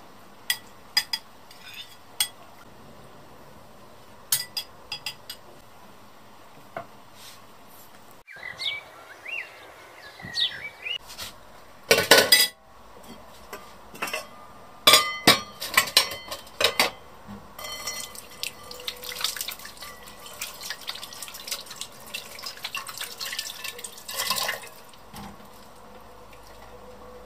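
Dishes handled at a metal washbasin: wooden spoons, bowls and pots clinking and knocking. Past the middle, water runs from a wall-mounted tap tank into the basin for several seconds.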